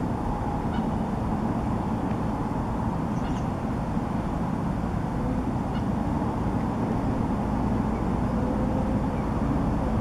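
Steady low rumble of road and parking-lot traffic, with a few faint short chirps.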